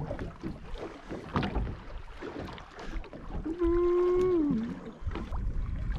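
Small boat drifting on open sea: water lapping and slapping against the hull with wind and scattered knocks. About halfway through, a held, humming tone lasts about a second and slides down in pitch at its end, the loudest sound here.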